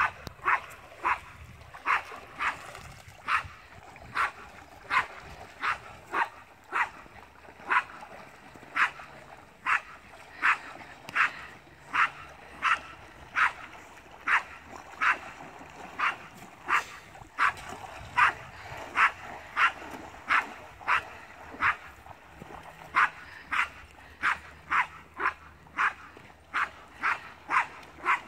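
A dog giving short, high yips over and over, about two a second, with a few brief pauses.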